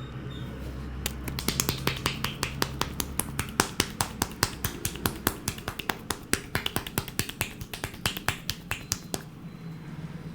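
A fast, uneven run of sharp hand clicks from the barber's hands during the head massage, about six a second. It starts about a second in and stops shortly before the end.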